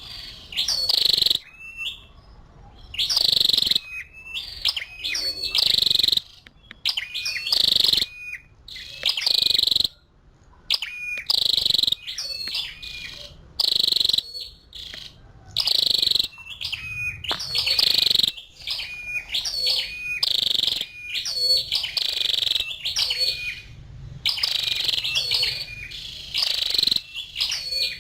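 Female flowerpecker calling: short, sharp, high notes in quick bouts that repeat about every one to two seconds.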